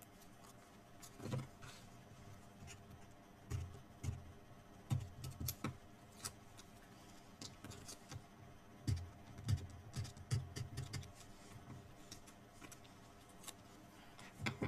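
Cardstock pieces being handled and fitted into place, faint: scattered light clicks and a few soft knocks at irregular intervals.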